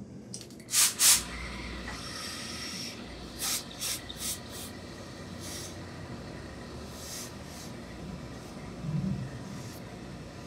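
Hose-fed steam iron letting off bursts of steam while pressing wool suit fabric: two loud hisses about a second in, then several shorter puffs over the next few seconds.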